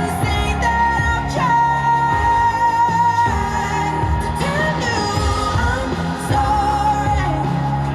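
Pop song with a singer holding long notes over a steady backing.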